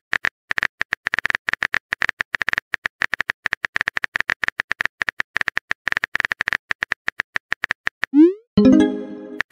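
Phone-keyboard typing sound effect of a texting-story app: rapid, irregular key clicks for about eight seconds, then a short rising swoop and a chime as a message is sent.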